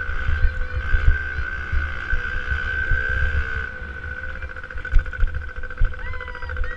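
65cc two-stroke motocross bike engine running at high, steady revs, heard from a camera mounted on the bike, with wind buffeting the microphone.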